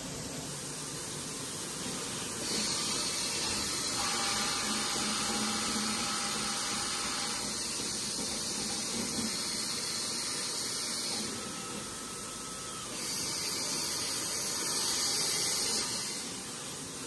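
Citizen L20 CNC Swiss-type lathe running a machining cycle, a steady machine noise under two long stretches of loud hissing spray. The first stretch starts about two seconds in and lasts about eight seconds, with a faint whine in its middle; the second is about three seconds long, near the end.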